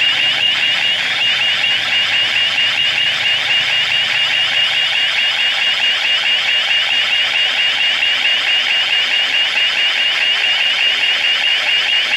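Electronic alarm sound effect: a high-pitched warbling tone that repeats evenly about three to four times a second.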